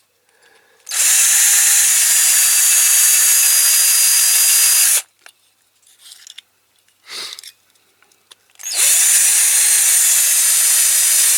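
Small electric drill running in two bursts of about four seconds each, drilling into a diecast metal toy car, with a short pause and light clicks between the runs. The bit is blunt and is not drilling well.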